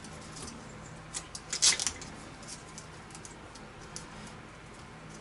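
Tape being peeled and unwrapped by hand from a tachometer and temperature sensor lead, a few short crackling rips about one and a half seconds in, with faint handling clicks around them.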